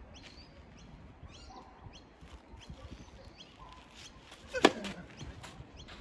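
Tennis racket striking the ball on a serve: one sharp hit a little past four and a half seconds in.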